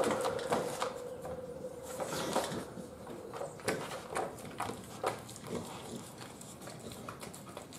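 An American Bully dog licking food scraps off a plastic crate floor: wet smacking and lapping clicks, irregular, about two a second. A steady tone fades out in the first couple of seconds.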